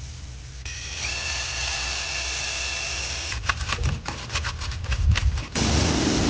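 Engine parts being cleaned. A hissing spray runs with a steady whine in it, then comes a quick run of clinks and knocks of metal parts being handled, and near the end a louder spray hiss starts.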